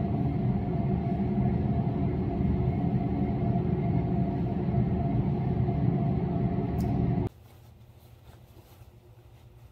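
A loud, steady, low mechanical rumble with a constant hum. About seven seconds in it cuts off suddenly, leaving quiet room tone.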